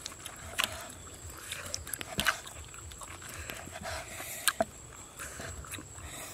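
Large kitchen knife cutting cooked beef tripe and intestine on a wooden chopping block, the blade knocking on the wood at uneven intervals, about half a dozen times.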